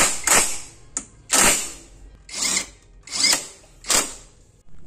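Cordless impact wrench tightening bolts at a scooter's rear shock and swingarm mount. It runs in a series of short bursts about a second apart, one of them very brief.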